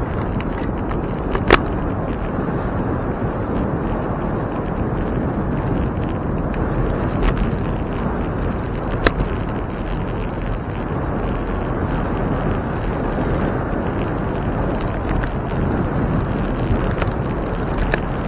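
Steady rumble of a bicycle rolling over pavement, with wind on the microphone. A few sharp clicks or knocks cut through, the loudest about one and a half seconds in and another about nine seconds in.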